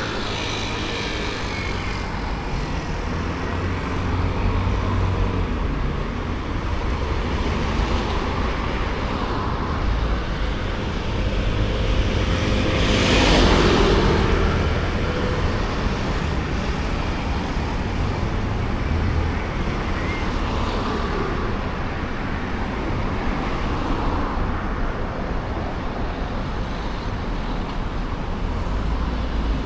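Road traffic going by, with one vehicle passing close about halfway through, its sound swelling and then fading.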